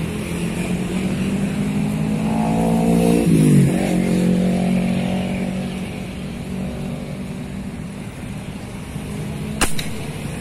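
Road traffic running close by: a passing vehicle's engine climbs in pitch and then drops sharply about three seconds in as it goes past. Near the end comes a single sharp crack, the fish-shooting airgun firing.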